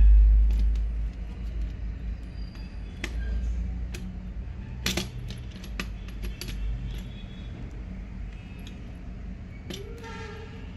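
Screwdriver tightening a terminal screw on a switch in a plastic switchboard: scattered sharp metallic clicks and taps as the blade works the screw.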